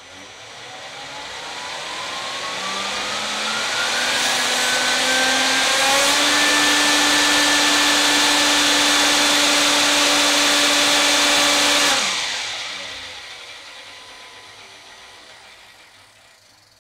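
3D-printed electric centrifugal-compressor turboshaft driving counter-rotating propellers through a gearbox, spooling up with a rising whine and rush of air, running steady at full power, then cutting off at about twelve seconds and winding down. In this run the compressor turned the wrong way because the ESC was wired backwards, and the propellers slipped on the gears and on their axle.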